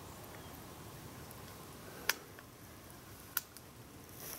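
Faint outdoor background hiss with two short, sharp clicks, about two seconds in and again a little over a second later.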